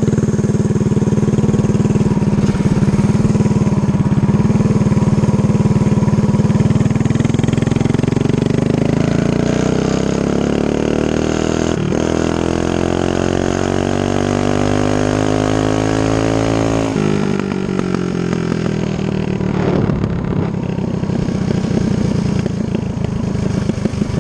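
Cammed Stage 3 Predator 212 single-cylinder engine on a Coleman CT100U mini bike, under way. It runs steadily, then accelerates with the revs climbing for about nine seconds, drops sharply as the throttle is closed, and runs on at lower revs.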